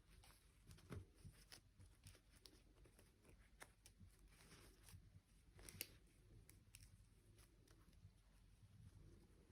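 Near silence with faint scattered clicks and light rustles, like small objects being handled; one slightly louder click comes near the middle.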